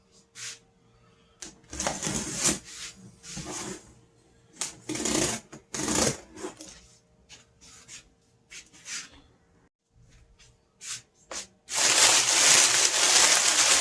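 A shipping box being opened by hand: irregular rustles, scrapes and taps of cardboard and packing, ending in a long, loud stretch of rustling and tearing about twelve seconds in.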